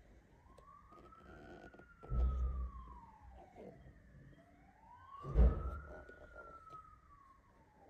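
A siren wailing, its pitch rising and falling slowly about every four seconds. Two dull bumps from the cardboard box being handled, about two seconds in and about five and a half seconds in; the second is the loudest sound.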